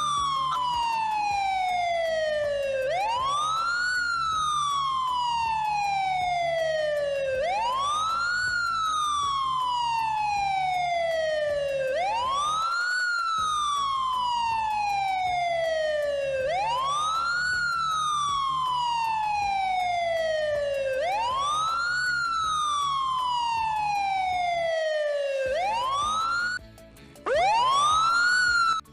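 Electronic siren wailing in repeated cycles. Each cycle sweeps up quickly, then falls slowly, about every four and a half seconds. It cuts off near the end, then starts up again briefly.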